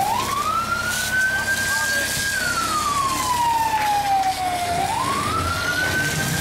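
Emergency vehicle siren wailing slowly. Its pitch rises quickly, holds high for over a second, then slides slowly down before rising again, in a cycle of about five seconds, over steady background noise.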